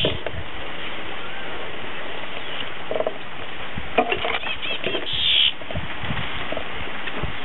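Steady outdoor hiss with scattered rustles and soft knocks of leaves brushing against a handheld camera, and a short run of high chirps about four and a half seconds in.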